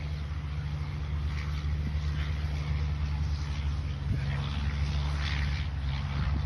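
Engine of a small wooden hua thong boat running steadily with a low hum, over a hiss of water and wind that swells now and then as the boat moves through the waves.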